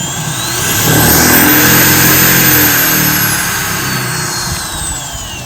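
Corded electric drill driving a canoe propeller, sped up through a rheostat speed control: its whine climbs to a high pitch over about a second, holds for a couple of seconds, then falls away as the drill slows.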